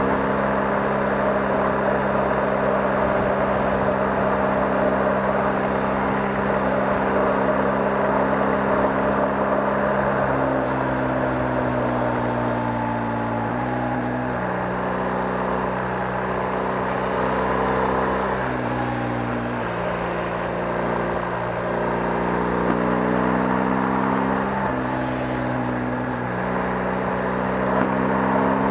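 BMW R 1250 GS boxer twin engine running under way, with tyre and road noise. It holds a steady note for about ten seconds, then rises in pitch and drops suddenly several times as it changes gear.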